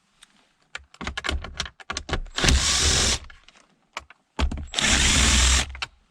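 Impact gun with an 8 mm socket spinning out small console bolts. A stretch of short stuttering trigger bursts is followed by two longer, louder runs, the second about two seconds after the first.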